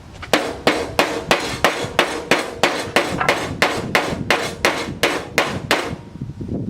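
Hammer blows on sheet steel in a steady run of about three strikes a second, each with a short metallic ring, folding down the edge of a fabricated patch panel; the hammering stops about six seconds in.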